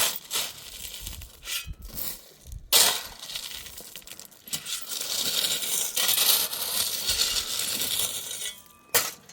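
Loose pebbles being poured out and spread, clattering and rattling. Sharp knocks come at the start and about three seconds in, then a long pouring rattle, then another knock near the end.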